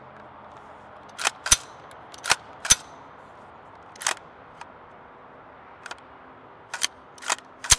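AR-15 action worked by hand: a series of sharp metallic clacks from the charging handle and bolt, some in quick pairs. The bolt is not locking back on the empty SGM magazine, whose follower does not quite reach the bolt catch.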